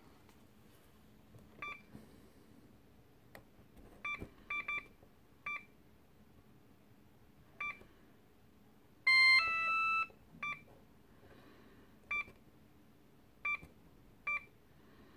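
Siemens IBIS tram on-board unit's keypad beeping as its keys are pressed to enter day type and route: about ten short single beeps at irregular intervals, with a louder, longer two-tone signal about nine seconds in.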